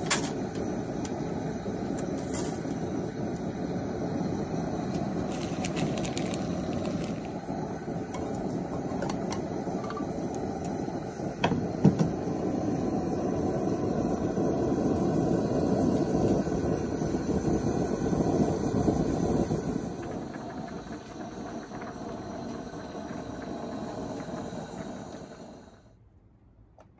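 Gas camp-stove burner running with a steady rushing flame under a pot of boiling water, with a few sharp clicks. The sound drops away near the end.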